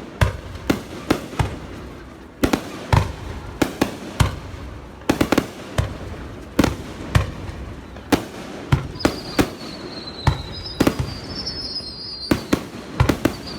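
Fireworks going off: a steady run of sharp bangs, irregularly spaced at a few a second. From about nine seconds in, a high whistle sliding slightly down in pitch runs under the bangs.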